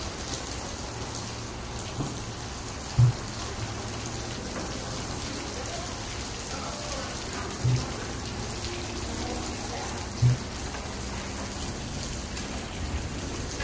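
Heavy rain and wind heard through glass entrance doors: a steady hiss, broken by three short low thumps about three, eight and ten seconds in.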